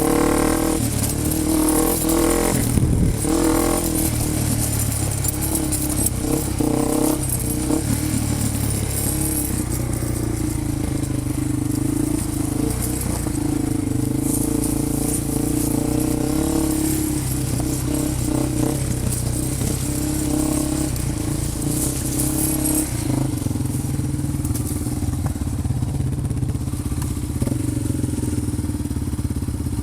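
Off-road vehicle engine running at a fairly steady speed, its pitch shifting slightly up and down.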